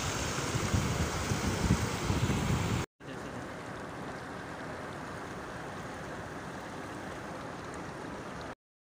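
Muddy floodwater rushing over a low ledge. About three seconds in, it cuts to a quieter, steady rush of shallow water flowing over stones, which stops suddenly near the end.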